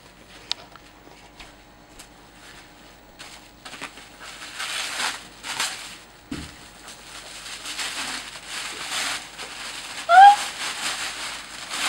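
Tissue paper rustling and crinkling as a wrapped gift is unwrapped by hand. A dull thump comes about six seconds in, and a short rising squeak near the end is the loudest sound.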